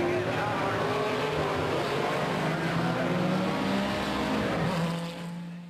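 Race car engine running, its pitch climbing slowly and steadily, then fading away near the end.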